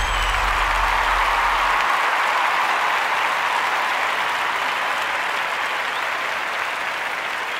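Large audience applauding, an even wash of clapping that slowly fades, with a deep rumble underneath that stops about two seconds in.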